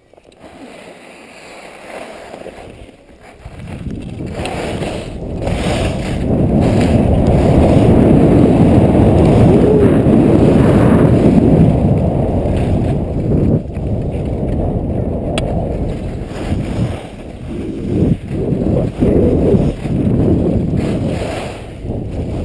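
Wind rushing over a GoPro's microphone and skis scraping across hard, icy snow on a downhill run. It starts faint, builds about three to four seconds in and stays loud, swelling and dipping unevenly in the second half.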